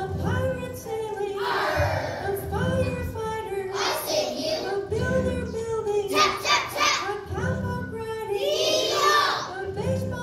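A group of young children singing a song together over recorded backing music, with a low beat pulsing beneath the melody.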